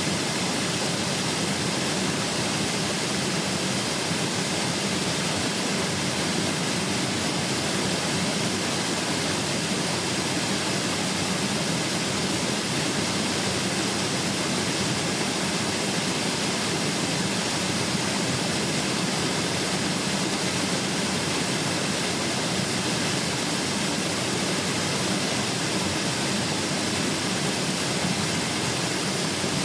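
Waterfall pouring steadily into a mountain stream, a constant rushing of falling water with no change in level.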